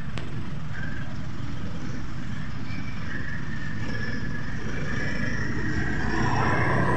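A car driving along the street close by, a steady low rumble of engine and tyres.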